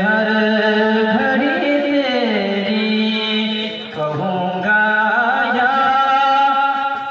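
A man singing a naat into a microphone, drawing out long, wavering, ornamented notes with no clear words, with a brief break about four seconds in.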